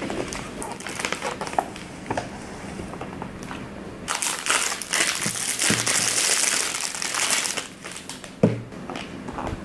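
Gift wrapping paper and a clear plastic wrapper crinkling as a box is unwrapped by hand. The crinkling is scattered at first and densest for a few seconds in the middle. A single short knock near the end is the loudest moment.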